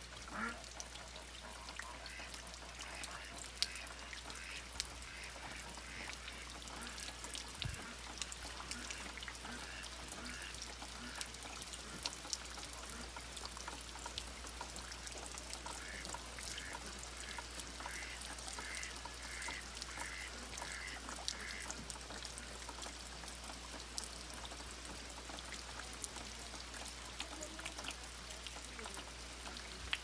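Steady rain falling with many small drips and ticks, while domestic waterfowl call: scattered calls early on, then a run of about ten calls at about two a second just past the middle.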